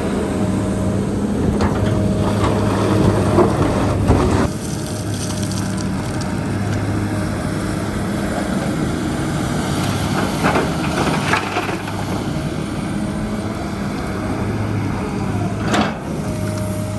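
Heavy earthmoving machine's engine running steadily, with several knocks and scrapes, the clearest about ten to eleven seconds in and again near the end.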